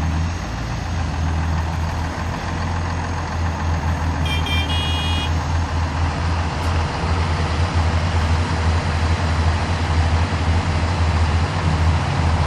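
Heavy diesel engines of a mired truck-mounted crane and a backhoe loader running steadily with a deep drone, growing louder in the second half. A brief high beeping tone sounds about four seconds in.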